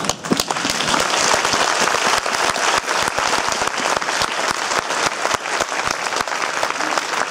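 Large audience applauding, many people clapping at once in a dense, even patter.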